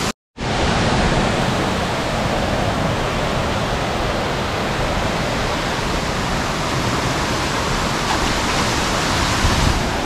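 Steady rushing noise of a large waterfall plunging into a pool, after a brief total dropout at the very start.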